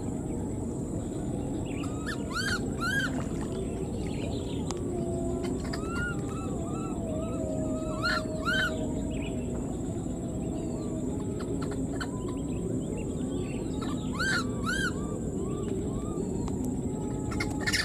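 A baby monkey calling for its mother: high, arching calls given in pairs three times, with softer chirps between them, over steady outdoor background noise and a faint, steady high-pitched whine.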